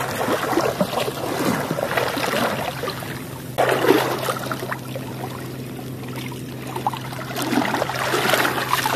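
Shallow seawater splashing and sloshing around a wader's legs as a gill net is hauled in hand over hand and dragged through the water, with surges of splashing and a steady low hum underneath.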